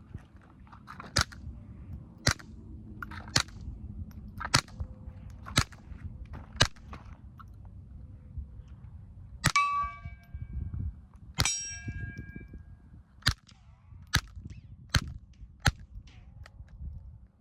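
Suppressed Mauser M-15 .22 LR rifle firing subsonic rounds through a Warrior Systems Legionary suppressor: about ten quiet shots, roughly one a second, sounding pretty good. Two of the shots, near the middle, are followed by a ringing metallic tone that dies away.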